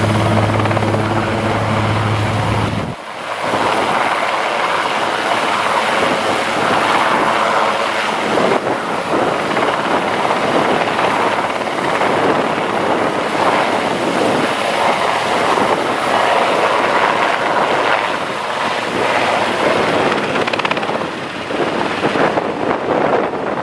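Twin-turbine Super Puma helicopter hovering close and then lifting off, rotors and turbines running loud. A steady low rotor hum drops away suddenly about three seconds in, leaving a rough, fluctuating rush of rotor noise and downwash.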